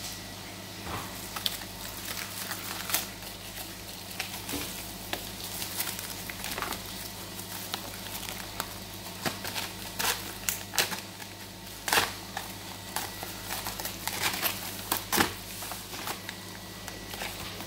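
Clear plastic shrink-wrap being pinched, torn and peeled off a ready-meal tray by hand, crinkling with many sharp, irregular crackles.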